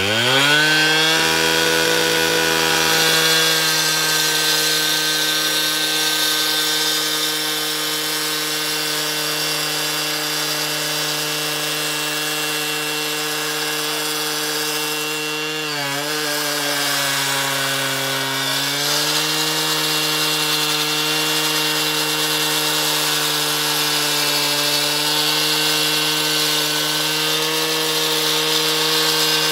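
Two-stroke gas cut-off saw revving up to full speed and cutting through a concrete curb, with water fed onto the blade. The engine note climbs sharply at the start and holds high, then drops in pitch for about three seconds a little past the middle before climbing back.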